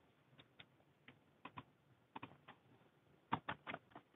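Faint computer keyboard keystrokes, a few scattered taps and then a quicker run near the end, as a file name is typed.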